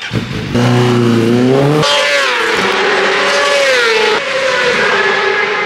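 Racing motorcycle engine at high revs: its pitch climbs as it accelerates, then a higher note falls away as it passes at speed, settling into a steady high-rev note.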